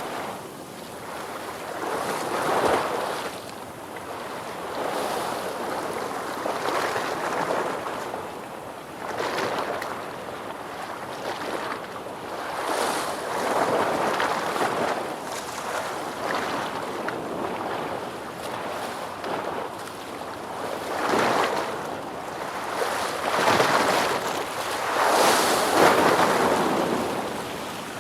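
Ocean waves: a continuous wash of surf that swells and ebbs every few seconds, with the loudest surges near the end.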